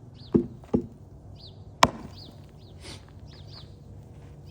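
Axe, most likely the Cold Steel Trail Boss, striking wood: two dull chops close together, then a single sharper, louder crack about a second later.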